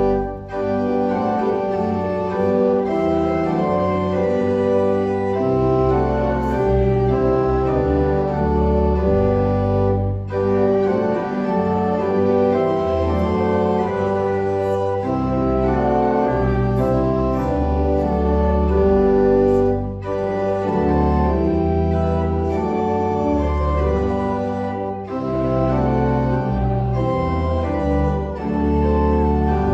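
Church organ playing slow, sustained chords over a moving bass line, with short breaks between phrases.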